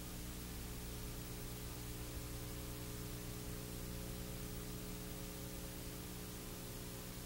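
Steady hiss with a low electrical hum underneath: the recording's background noise, with no other sound.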